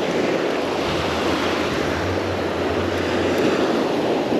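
Surf breaking and washing up the sand in a steady rush.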